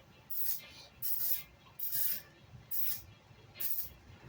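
Five short hisses, about one a second, with quiet between them.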